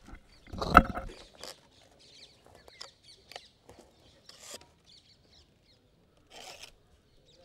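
Dry rustling and scraping of a palm leaf being handled and folded into a drinking cup, with small handling noises. A short, loud bump a little under a second in is the loudest sound.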